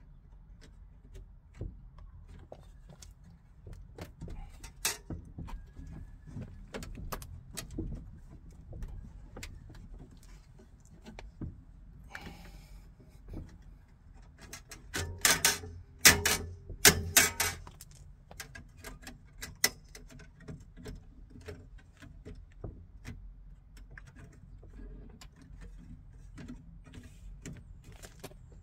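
Metal window frame being pressed and worked onto a Fiat 126 door by hand: scattered light metallic clicks and taps, with a burst of louder knocks a little past halfway through.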